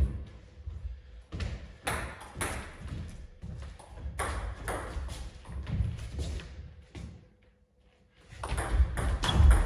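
Table tennis ball ticking off the bats and bouncing on the table, a string of short sharp clicks. The sound drops out completely for about a second near the end, then a quicker run of hits follows.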